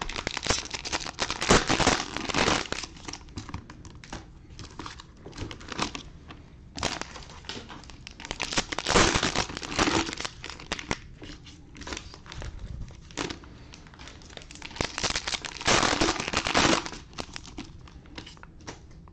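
Cellophane wrappers of trading-card cello packs crinkling as they are handled and torn open, with three louder bursts of crackling and scattered small clicks in between.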